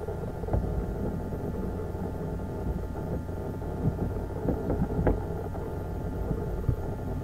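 Drive of a rotating-tank turntable turning steadily at about 10 RPM: a steady low hum and rumble with a few faint steady whining tones, peppered with small clicks and ticks, and a sharper tick about five seconds in.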